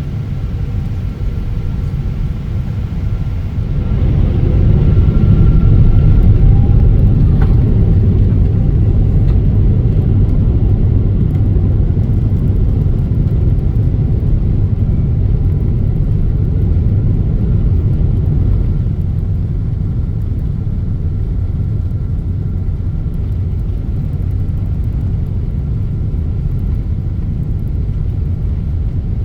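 Airplane taking off: a deep, steady engine rumble that swells about four seconds in, then slowly eases off, with a faint steady high whine over it.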